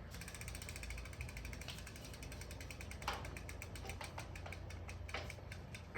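Rapid, even ratchet-like ticking of a bicycle's rear freehub as the wheel spins freely on the stand, with a couple of louder knocks about halfway through.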